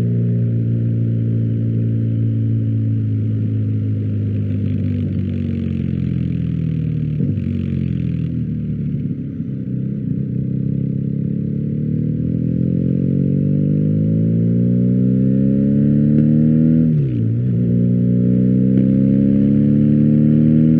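BMW R1250GS boxer-twin engine running through an Akrapovic exhaust: the engine note falls for the first nine seconds or so as revs drop, then climbs steadily as it pulls again, with a short dip and recovery about three seconds before the end.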